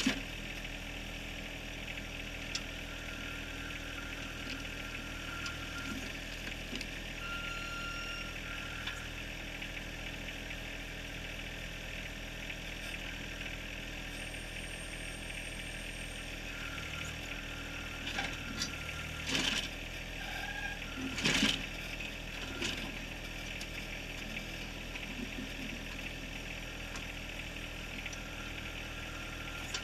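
John Deere 1023R compact tractor-loader-backhoe's diesel engine running steadily while the backhoe digs in rocky gravel. A few loud scrapes and clunks come about two-thirds of the way in, typical of the bucket working against rock.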